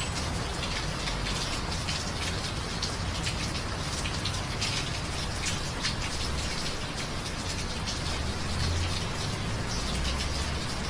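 Steady rain falling, with scattered sharper drop ticks over an even hiss and a low rumble underneath.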